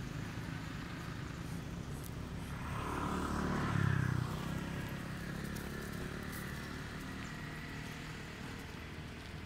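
A motor vehicle engine swells up and fades away about three to four seconds in, over a steady low rumble.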